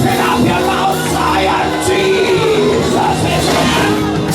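Church praise music: long held instrumental chords under a congregation singing, shouting and calling out in praise.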